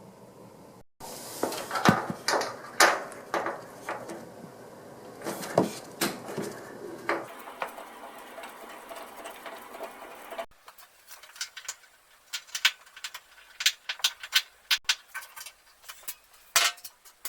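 A stubby screwdriver backing out the screws that hold a front-load washing machine's top panel, with irregular clicks and scrapes of metal on metal and plastic. Near the middle the clicks become sharper and more separate.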